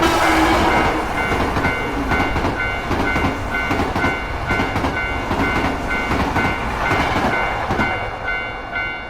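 A Japanese railway crossing bell clangs in a steady repeating rhythm while a train runs past with a loud rumbling rush. The rush eases off near the end.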